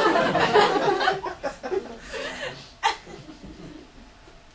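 Audience laughing, loudest at the start and dying away over a few seconds, with one sharp tap about three seconds in.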